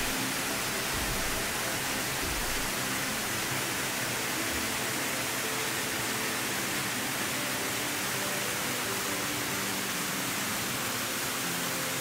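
Waterfall pouring into a plunge pool: a steady, even rush of falling water.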